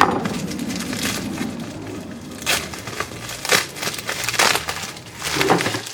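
Shipping packaging being torn and pulled open by hand: irregular crinkling, scraping and ripping, with several louder rips in the second half.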